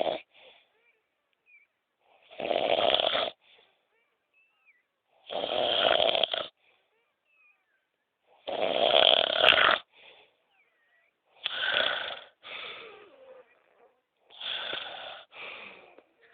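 A person snoring: five long snores about three seconds apart, each lasting about a second, the later ones breaking into two parts.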